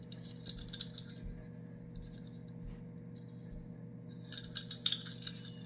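Rigid plastic blister packaging crackling and clicking as a toy car's package is opened: a short spell about half a second in, then a louder one near the end, over a faint steady hum.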